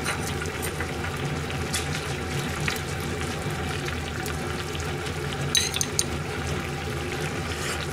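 Sukiyaki broth simmering in a pan on a gas hob, a steady bubbling, while a metal ladle stirs and scoops the broth. A few light clinks of the ladle, two close together about five and a half to six seconds in as broth is ladled into a small porcelain bowl.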